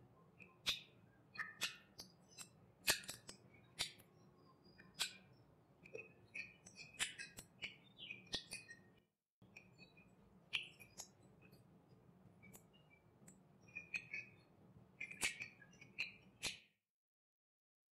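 Close-miked eating sounds: fingers squelching rice into chicken curry gravy, with wet lip smacks and chewing, as an irregular run of sharp sticky clicks. The sound cuts out to dead silence briefly about nine seconds in and again near the end.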